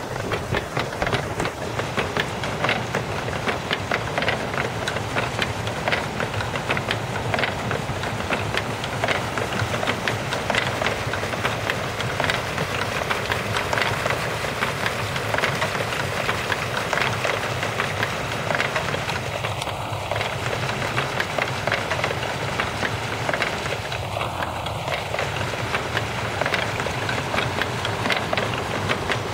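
Water-wheel-driven mechanical scarecrows beating festival drums: a steady, rapid, uneven clatter of wooden sticks and cams knocking, kept up without a break.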